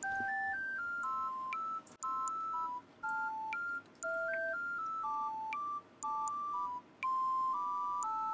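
A simple electronic melody of pure beeping tones, one note at a time, stepping up and down in short phrases with brief gaps between them.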